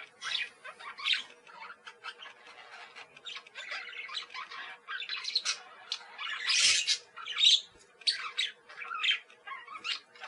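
Parakeets chattering, a quick irregular run of short chirps and squawks, loudest about six and a half to seven and a half seconds in, over a faint steady hum.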